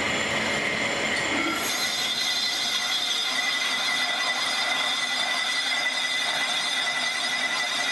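Lathe tool cutting inside a cast brake drum as it spins: a steady metallic cutting noise with a high, even whine. The whine grows stronger about a second and a half in.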